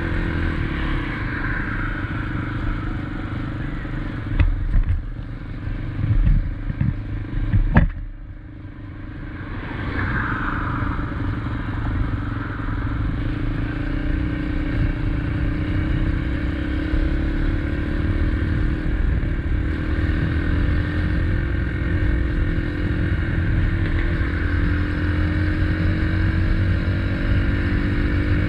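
SSR XF250 dirt bike's 250cc single-cylinder engine running while riding, heard from the bike. Several sharp knocks come between about four and eight seconds in, then the sound drops off briefly. After that the engine picks up again, its pitch slowly rising as the bike speeds up.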